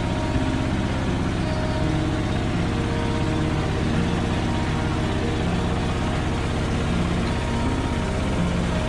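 Motorboat engine running steadily, a low continuous drone whose pitch wavers slightly.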